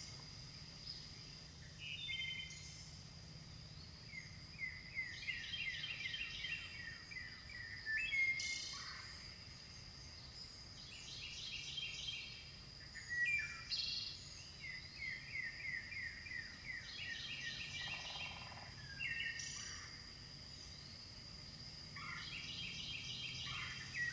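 Songbirds singing outdoors: repeated phrases of quick chirps and rapid trills every few seconds, over a steady high-pitched whine like an insect chorus.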